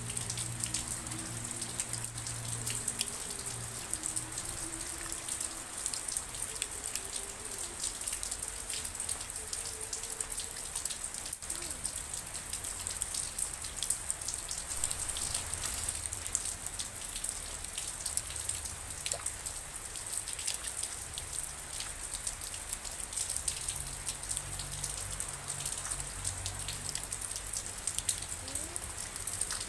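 Steady rain, with many separate drops ticking close by over an even hiss. A faint low hum lies under it for the first few seconds.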